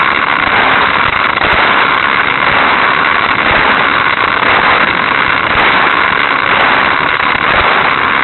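Hot Wheels Sizzlers toy car's small electric motor running at high revs as the car laps its plastic track, a loud steady whirr, heard through the small onboard keychain camera's microphone.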